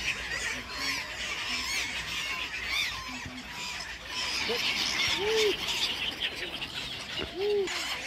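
A flock of black-headed gulls calling, with many short, harsh cries overlapping, and two louder, lower calls about five and seven seconds in.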